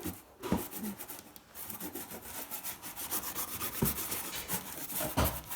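A paintbrush scrubbing back and forth on a toy house in quick, repeated rubbing strokes, with a few soft knocks.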